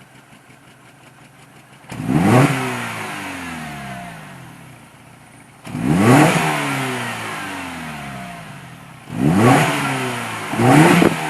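2007 Mini Cooper R56's 1.6-litre four-cylinder engine idling, then revved four times: each rev climbs quickly and falls back slowly toward idle. The engine is one that misfires at idle once warmed up.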